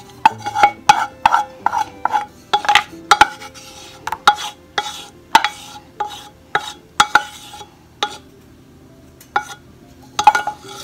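Wooden spoon scraping and knocking against the inside of a metal saucepan as thick gelatin mixture is scraped out: a string of taps with a short metallic ring, about two a second. They thin out after about seven seconds, with a last few near the end.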